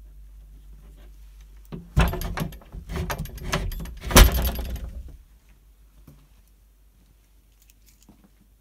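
Keys jangling and clicking in a door lock, with a burst of clatter about two seconds in and a loud clunk a little after four seconds as the door is pulled shut.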